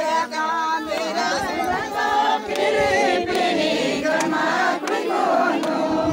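A crowd of voices singing and chanting together, many pitches overlapping at once.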